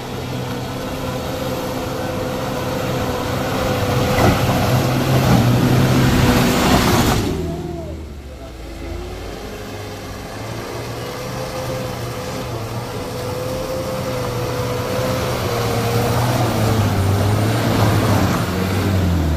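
Heavy diesel vehicle's engine running hard under load. The engine note builds for several seconds, drops sharply about seven seconds in, then climbs again and eases off near the end.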